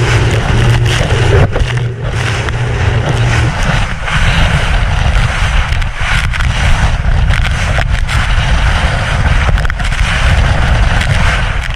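Water rushing and spraying along the hull of a small powerboat driving through rough, choppy seas, with wind buffeting the microphone and scattered sharp knocks of waves against the hull. A steady low engine drone from the 115 hp Yamaha outboard fades under the water noise about three and a half seconds in.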